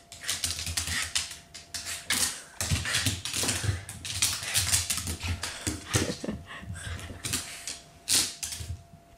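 A Shiba Inu's claws clicking and pattering rapidly on a wooden floor as the dog scrambles and turns about excitedly, with soft thumps of its paws.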